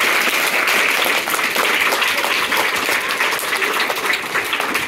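A group of children applauding, many hands clapping together steadily.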